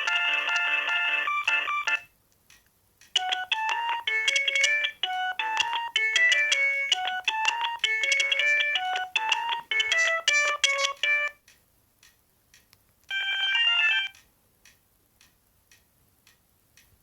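Ringtone melodies played by an Alcatel OT-E256 mobile phone: one tune ends about two seconds in, a second plays for about eight seconds, and a third starts near the end and is cut off after about a second, leaving faint ticks.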